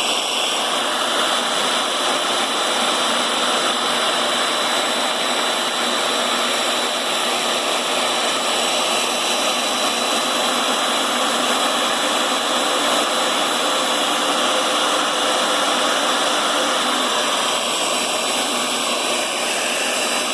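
Electric drill motor running steadily as a center drill cuts a pilot hole into a broken cylinder-head bolt, an even whirring whine with no let-up.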